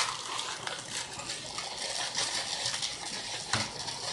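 Water running steadily from a tap, a hissing rush with small splashes. Two sharp knocks, at the start and about three and a half seconds in, sound like a bowl or dish being handled.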